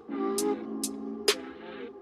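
Background electronic music: sustained synth chords with a crisp hi-hat-like tick about every half second.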